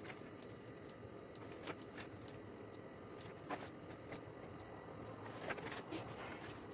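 Faint ticks and light scrapes of a pizza-cutter wheel rolling through the top layer of baklava dough along a plastic board, scoring it into strips, with a few sharper clicks spread through.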